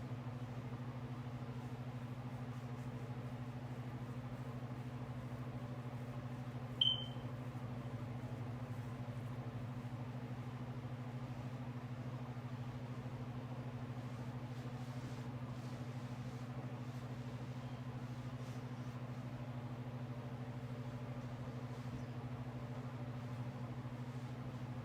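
Steady low mechanical hum, with one sharp pop about seven seconds in.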